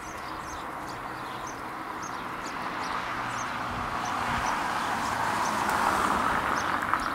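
Road traffic: the engine and tyre noise of a vehicle approaching grows steadily louder, swelling to its loudest about six seconds in and easing slightly near the end. A small bird chirps repeatedly over it.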